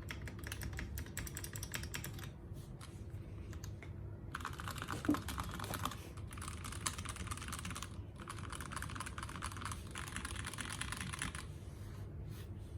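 Custom mechanical keyboard being typed on fast, with a creamy keystroke sound, in several runs of rapid keystrokes with short pauses between them. The typing stops about a second before the end.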